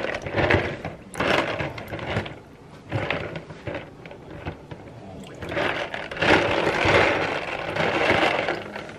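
Water sloshing and splashing in a plastic colander as a hand stirs live snails in it, in irregular bursts with the longest stretch in the second half: the snails being rinsed and purged of dirt before cooking.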